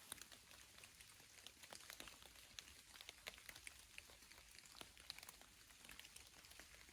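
Light rain: faint, irregular raindrop ticks pattering, several a second, over a soft hiss.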